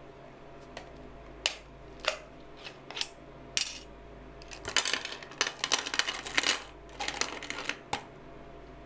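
Ring-pull lid of a clear seafood can being opened with a few sharp separate clicks. This is followed by two runs of dense clattering as small cone-shaped sea snails in their hard shells are tipped out of the can onto a plastic tray.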